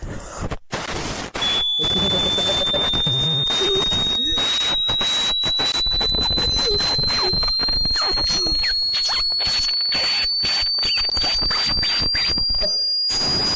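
Loud, harsh distorted noise chopped by many abrupt breaks, with a thin high whistling tone slowly rising in pitch underneath.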